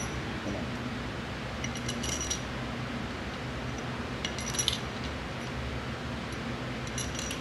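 Steel bolts clinking together in a hand, three short jingling bursts over a steady low background hum.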